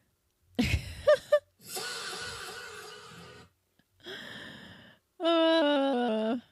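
A string of short sound-effect clips, each starting and stopping abruptly: a brief burst with a thump, a long breathy sigh-like hiss, a short hiss, and last and loudest a pitched tone that steps down in pitch several times.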